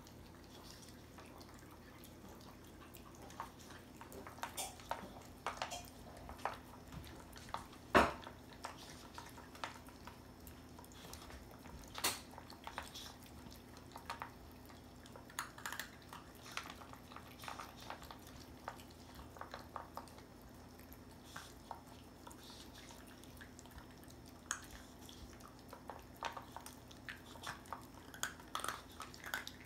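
Two small dogs eating kibble from stainless steel bowls: irregular small clicks and clinks of kibble and teeth against the metal bowls, with chewing. The loudest clank comes about 8 seconds in, and another about 12 seconds in.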